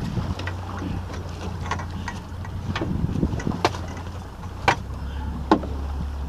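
Boat engine running steadily under way at trolling speed, with several sharp clicks and knocks from fishing gear being handled at the stern, the loudest two near the end.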